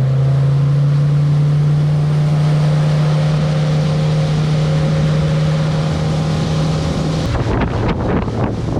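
Motorboat engine running at speed with a loud steady drone, over wind and water noise. About seven seconds in the engine note drops.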